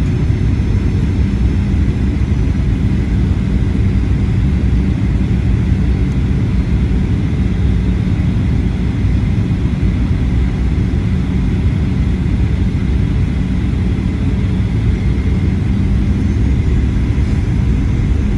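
Steady cabin noise inside a Boeing 737-800: its CFM56-7B engines and the airflow giving a constant low rumble, with a faint steady whine above it.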